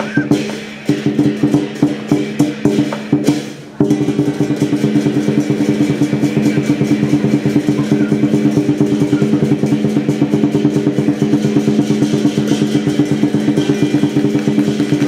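Lion dance percussion: a drum beaten with cymbals and gongs ringing. It breaks off briefly about four seconds in, then resumes as a steady, fast, even beat.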